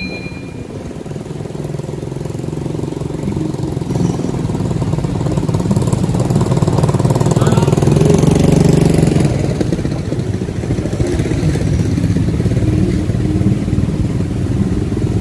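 A motor vehicle's engine running, growing louder to a peak about halfway through and then easing off a little.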